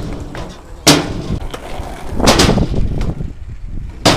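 Skateboard wheels rumbling over a sheet-metal ramp and asphalt, with sharp bangs as the board strikes or lands on the ramp: about a second in, around two and a half seconds in, and just before the end.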